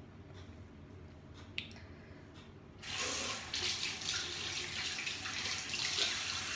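Water running from a tap into a bathroom sink, starting abruptly about three seconds in and running steadily for about four seconds before cutting off.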